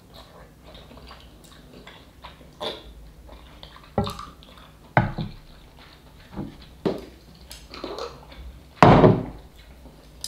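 Someone eating instant noodle soup from a pot: slurping and chewing, with scattered knocks of chopsticks and a wooden ladle against the pot. The sounds come every second or two, the loudest about nine seconds in.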